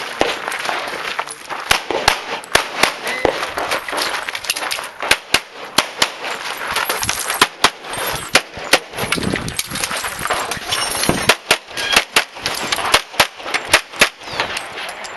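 Handgun shots fired in rapid strings with short pauses between them: a competitor shooting a timed practical-pistol stage.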